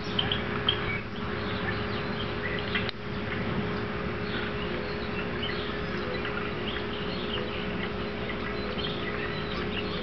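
Outdoor ambience: scattered short bird chirps over a steady low hum and background hiss, with a single sharp knock about three seconds in.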